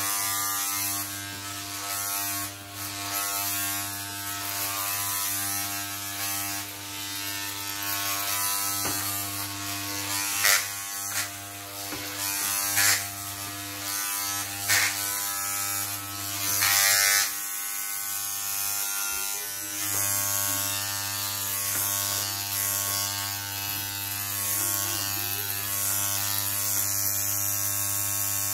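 Electric hair clippers buzzing steadily while cutting hair, with several brief louder rasps as the blades run through the hair between about ten and seventeen seconds in.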